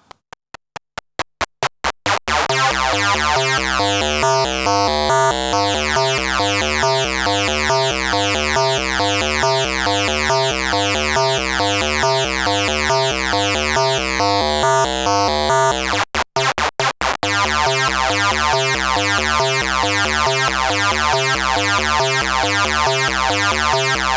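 Eurorack modular synth: a triangle-wave oscillator crushed by a Doepfer A-189-1 bit modifier into a buzzy, stepped tone. It plays a fast four-step sequence of about five notes a second, a little out of tune because no quantizer is used. The notes start as short blips with gaps between them, then run together from about two seconds in as the envelope's decay is opened up; about two-thirds of the way through they turn short and gapped again for a moment.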